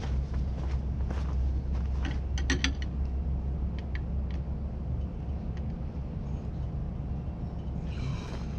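A wrench clinking on a metal bracket at the corner of a Kubota tractor's cab roof: a quick run of sharp, ringing metallic clinks about two and a half seconds in, then a few fainter clicks, over a steady low rumble.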